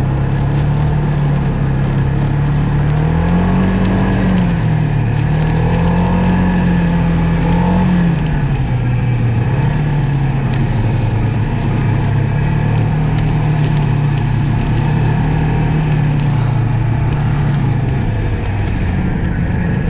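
Snowmobile engine running under way, its pitch climbing and easing back twice in the first eight seconds, then holding steady.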